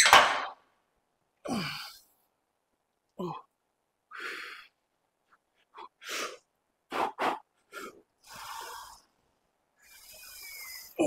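A man breathing hard and grunting through heavy Smith machine squats with 120 kg on the bar: a string of sharp hissing breaths and strained voiced grunts that fall in pitch, about one every second.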